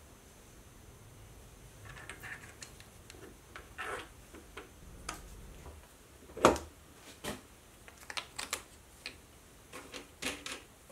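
Scattered clicks and light knocks of parts being handled as plastic washers and a silicon carbide grinding wheel are fitted onto a steel grinder shaft, with one sharper knock about six and a half seconds in.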